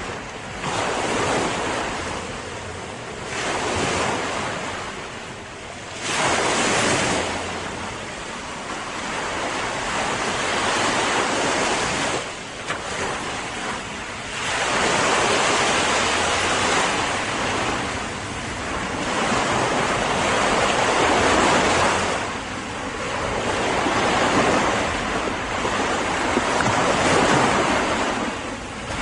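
Sea waves breaking and washing ashore in surges every few seconds, with wind on the microphone.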